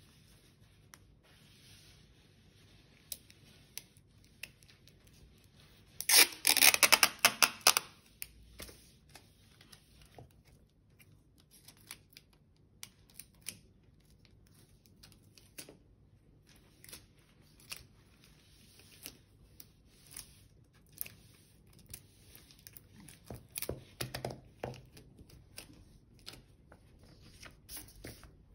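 Clear sticky tape pulled off its roll in a loud crackling rip lasting about two seconds, about six seconds in. Otherwise small clicks and rustles of handling tape and paper, with a shorter rough cluster of rustling later on.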